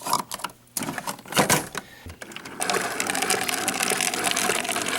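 Keurig single-cup coffee maker being loaded: a few clicks and knocks of handling and shutting the lid, then about two and a half seconds in the brewer's pump starts and runs with a steady hum.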